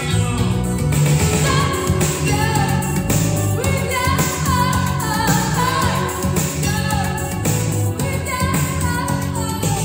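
A song with a singing voice and full band accompaniment, played loudly through B&W Matrix 1 bookshelf loudspeakers driven by a vintage Yamaha AX-470 stereo amplifier.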